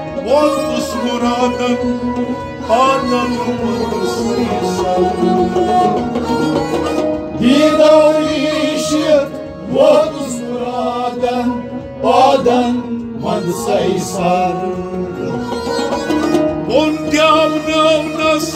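Kashmiri Sufi devotional song: a harmonium holds sustained chords and a bowed sarangi plays, under men's voices singing a melodic line.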